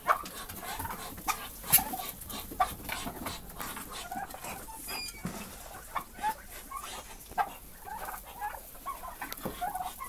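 A mixed flock of poultry, turkeys, muscovy ducks and hens, making scattered short clucks and calls, with sharp clicks in between.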